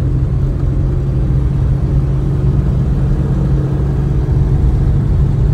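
Mercedes-Benz Ponton driving at a steady pace with the top off: a constant engine drone and road rumble, heard from inside the open car.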